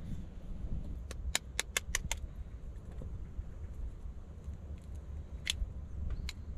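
Egg tapped against a steel knife blade to crack its shell: six light, sharp clicks in quick succession, about five a second, then two single clicks later on, over a steady low rumble.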